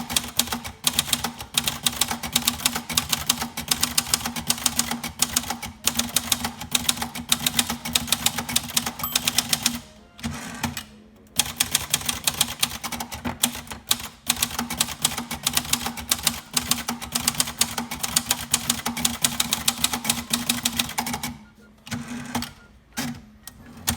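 Silver-Seiko-built 1969 Royal Mustang manual typewriter being typed on quickly: a rapid, even run of type-bar strikes against the platen. The typing breaks off for about a second around ten seconds in and thins out near the end.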